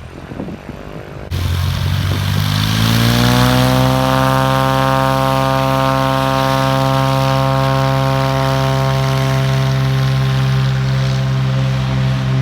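Light propeller airplane's piston engine throttling up: its pitch climbs for a couple of seconds, then holds steady at high power. The sound comes in suddenly about a second in.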